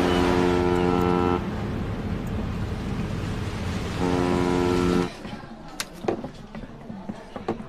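A steamship's horn sounds twice, two long steady blasts (the first about a second and a half, the second about a second), over a steady rumble of sea and engine. Near the end the sound falls to a quiet room with scattered small clicks and clinks.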